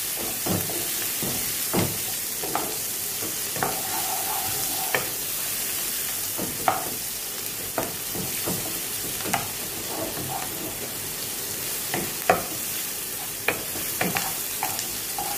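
Chopped onions sizzling in hot oil in a nonstick kadai while a spatula stirs them, scraping and knocking against the pan at irregular moments. The onions are being sautéed on a high flame to a light brown.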